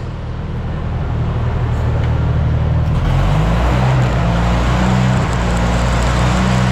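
An engine running steadily, its note changing about three seconds in.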